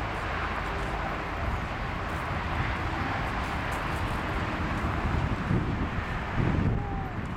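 Steady outdoor background noise with a few low thumps about five to six and a half seconds in.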